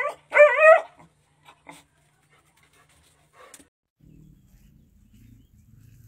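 Dog giving a short whine whose pitch warbles up and down, just after the start. A few faint clicks follow, and a faint low hum comes in about four seconds in.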